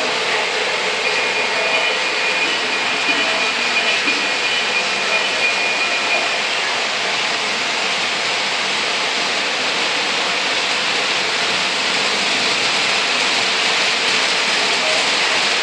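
O gauge model trains running on three-rail track: a steady whirring rumble from the locomotive motors and rolling wheels, with a thin high whine for a few seconds about a second in and again at the end.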